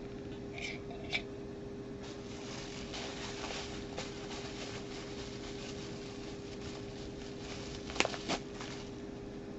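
A Funko Soda collectible can being handled and opened by hand. Faint crinkling and rustling is heard, with a couple of light clicks near the start and two sharper clicks about eight seconds in, over a steady low hum.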